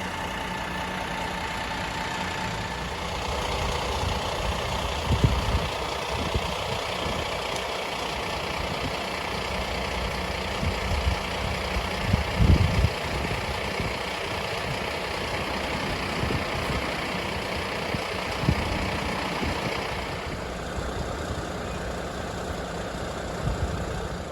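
A large vehicle's engine idling steadily, most likely a truck. Low rumbles run through it, and there are a few dull knocks, the loudest about five and twelve seconds in.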